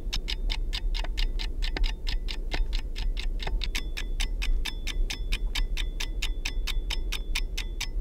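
Rapid, even ticking, about six ticks a second, picked up through a piezo contact microphone, over a steady low mains hum.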